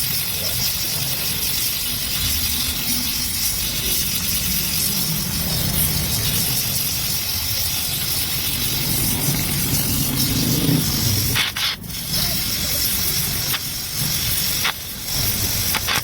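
Gas welding torch flame hissing steadily, with a low rumble underneath; the hiss dips briefly twice in the last few seconds.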